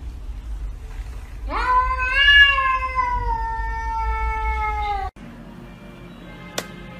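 A domestic cat's single long, drawn-out meow, rising sharply at first and then slowly falling, lasting about three and a half seconds before it cuts off abruptly.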